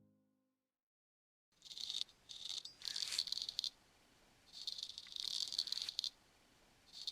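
Straight razor scraping in short shaving strokes, starting about a second and a half in: five rasping strokes, each roughly half a second to a second and a half long, with brief pauses between them.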